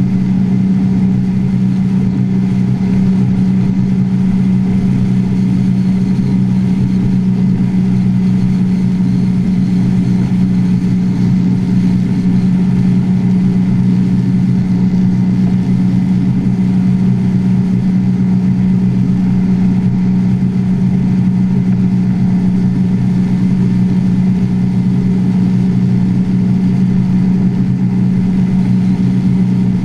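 Drag boat's exposed carbureted engine running at a steady, even cruise, held easy during its break-in period, with water rushing past the hull.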